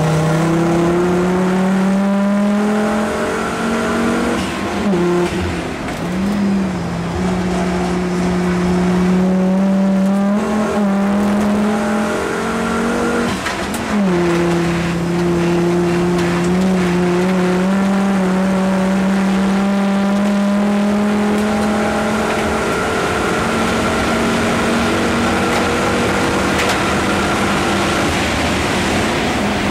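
Volvo 850 BTCC touring car's five-cylinder racing engine heard from inside the cabin, running hard on track. The engine note mostly holds at a steady pitch, with brief dips several times in the first half, about 5, 10 and 14 seconds in.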